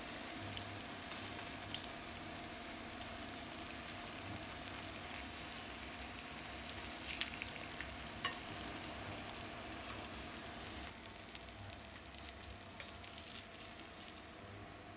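Potato and carrot patties shallow-frying in hot oil in a frying pan: a steady sizzle, with a few sharp clicks of a spatula against the pan. The sizzle drops a little about eleven seconds in.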